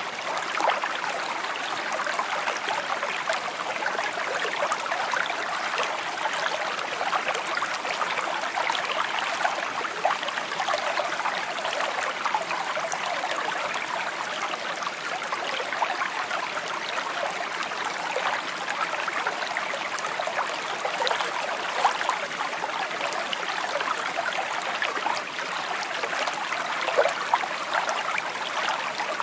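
Shallow stream babbling and trickling over stones, a steady rush of water flecked with small gurgles and splashes.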